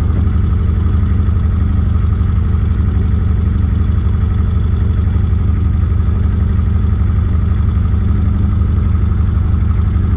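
Narrowboat engine running steadily as the boat cruises along the canal, a constant low hum heard from on board.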